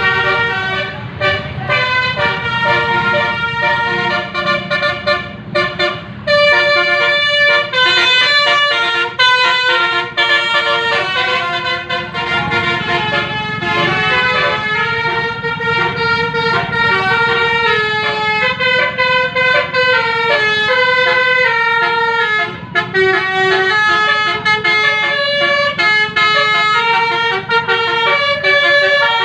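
Telolet basuri multi-tone bus air horn, its several trumpets sounding together and stepping through a melody, with a few brief breaks between phrases. A low rumble runs underneath.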